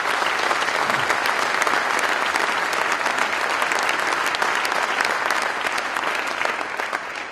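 Audience applauding: dense, steady clapping that tapers off near the end.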